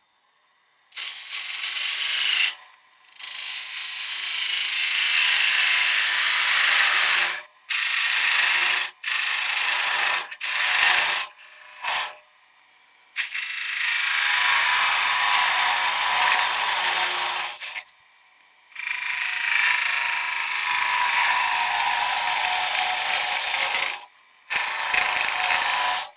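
A tool cutting or abrading wood as it spins on a woodturning lathe, in repeated bursts a few seconds long with short pauses between them.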